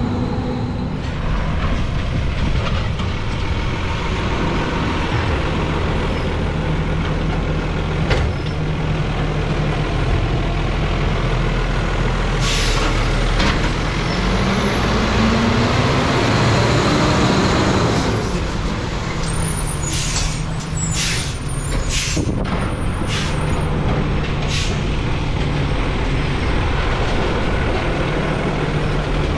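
Freightliner Condor recycling truck's turbo diesel engine running steadily. About halfway through it revs up with a rising pitch. About two-thirds of the way in comes a quick run of sharp air hisses, typical of the truck's air brakes.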